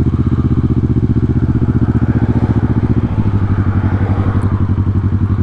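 2009 Kawasaki ER-6n's parallel-twin engine running steadily with an even, close-spaced pulsing. Its note shifts a little about three seconds in.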